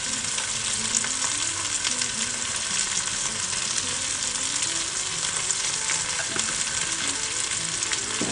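Taro root pieces frying in hot oil in a saucepan: a steady sizzle with scattered crackles.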